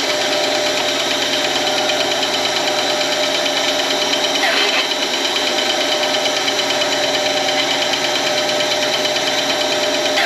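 Shop power tool's motor running steadily at constant speed, with an even hum.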